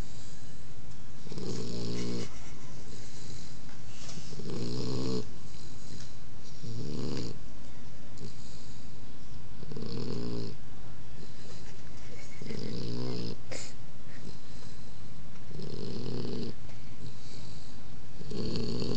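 Pit bull puppy snoring loudly in its sleep: a low, buzzy snore about every three seconds, seven in all, with a softer breathy hiss between snores.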